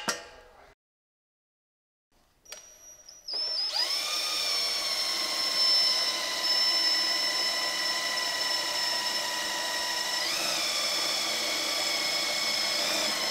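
Power drill boring a hole through the mower's steel frame. After a short blip, the motor spins up to a steady high whine about three seconds in and holds it, rising in pitch for a moment near the ten-second mark.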